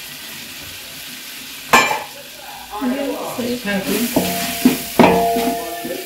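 A slotted metal ladle scraping and knocking against an aluminium pot as it stirs chilli powder into frying onions and tomatoes, which sizzle faintly underneath. A sharp clank comes a little under two seconds in, then repeated scraping strokes with the pot ringing briefly.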